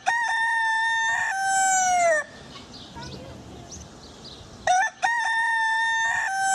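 Kampung rooster crowing twice. Each crow is a short opening note, then a long held note that falls away at the end. The first crow fills the first two seconds, and the second starts about two seconds before the end.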